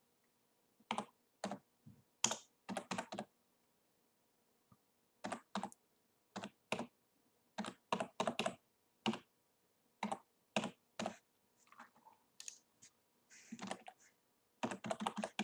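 Typing on a computer keyboard: single keystrokes and quick runs of a few keys in irregular groups, with pauses of up to about two seconds between them.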